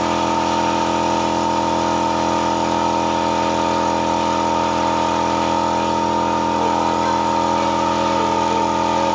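A machine running steadily with a constant, unchanging hum made of several fixed tones.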